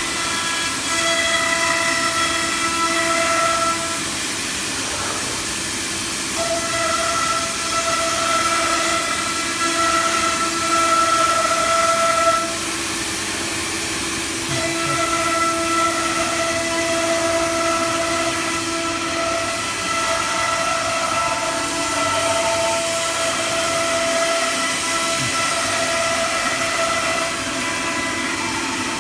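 Wood CNC router running: a steady high spindle whine over a hiss, the whine holding one pitch and dropping away twice for a couple of seconds, around 4 and 12 seconds in.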